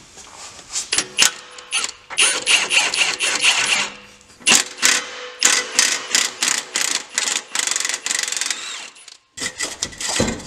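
Cordless impact wrench run in short bursts on the nuts of an exhaust pipe clamp, a rattling hammer of clicks that loosens them off the bolts.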